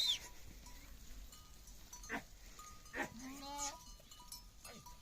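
A goat bleats once, a short wavering call about three seconds in, amid a few light knocks.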